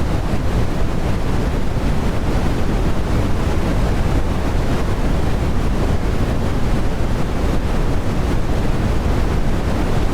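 Loud, steady rushing static hiss with a deep rumble underneath, like a noisy broadcast carrier.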